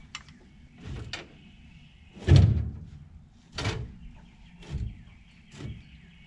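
A series of about six knocks and clunks on a log skidder's metal as parts are worked on by hand, roughly one a second, the loudest a little over two seconds in.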